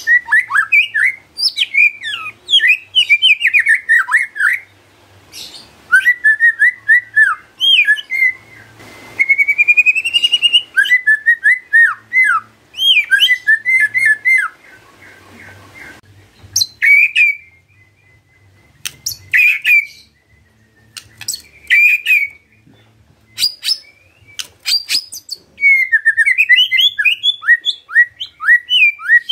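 White-rumped shama (murai batu) singing loudly in bursts of fast, varied whistled phrases. About nine seconds in comes one long rising whistle, and from about 17 to 25 seconds the song thins to short separate notes before dense phrases return near the end.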